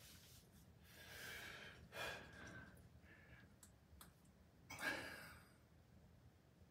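Faint, breathy exhales of a man flexing through bodybuilding poses, a few short breaths with the strongest about five seconds in.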